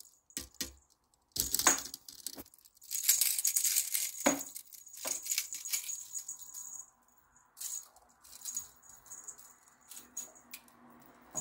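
Feather wand cat toy rattling and jingling as it is waved for cats to chase, in irregular bursts with a few sharp knocks, quieter in the second half.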